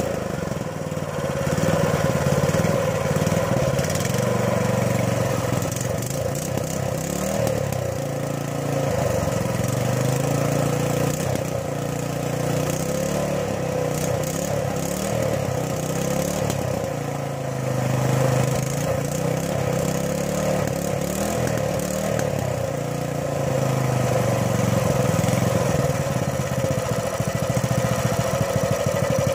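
Baja 196cc single-cylinder small engine running through a custom-made exhaust pipe, its speed wavering a little.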